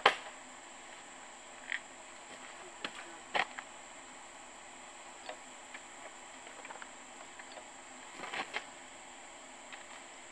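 Quiet outdoor ambience: a steady high-pitched insect drone with scattered light clicks and taps. The loudest tap comes right at the start, and a small cluster comes about eight seconds in.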